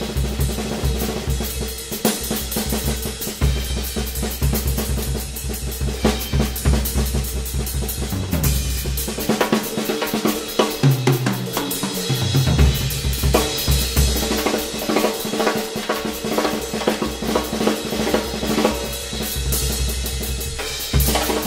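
Acoustic drum kit played solo: fast strokes on snare and toms over the bass drum, with cymbals ringing. The bass drum drops out for a few seconds from about nine seconds in, then comes back.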